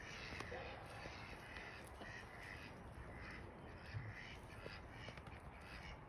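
Faint crows cawing repeatedly, a string of short hoarse calls, with a soft low bump about four seconds in.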